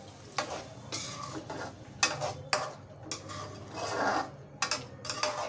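Metal spoon stirring thick onion-tomato masala in a metal kadai, with irregular clinks and scrapes against the pan, one longer scrape about four seconds in.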